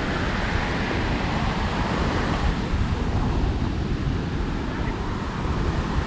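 Ocean surf breaking on a sandy beach, a steady rush of noise, with wind buffeting the microphone and adding a low rumble.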